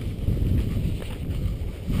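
Wind buffeting the microphone: a low rumble that swells and fades unevenly, with a few faint clicks over it.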